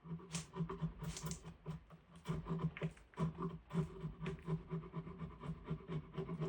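Quick, even scraping strokes, about three a second, as a diamond willow stick is cleaned up by hand.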